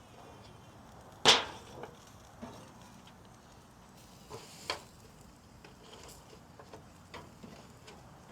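Sharp metal clacks of a grilling utensil against the grill grate while burgers are moved, a loud one about a second in and a handful of lighter ones after.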